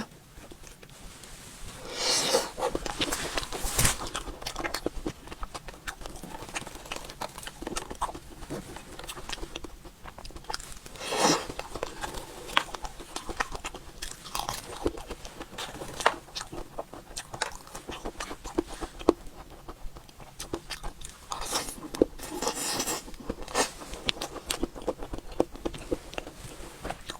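Close-miked eating of mousse cake: chewing and wet mouth sounds with many small crackles and clicks. Louder bites come near the start, in the middle and again near the end.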